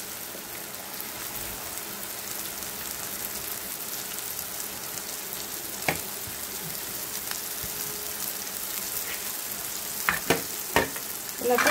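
Onion-tomato masala with chilli powder and chopped bajji chillies sizzling as it fries in oil in a pan. A few sharp knocks come through it, one about halfway and three near the end.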